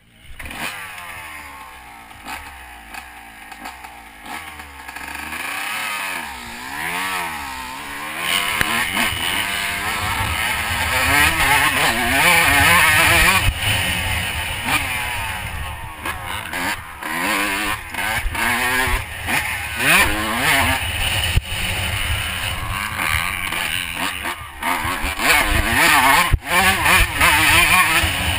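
Honda CR125 two-stroke motocross bike riding the track, its engine revving up and down over and over with the pitch repeatedly rising and falling; it starts at once and gets louder about eight seconds in.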